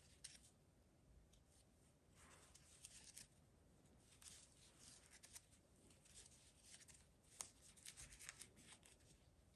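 Faint scratchy rustle of a crochet hook drawing yarn through single-crochet decrease stitches, in short spells every second or two with a small click among them.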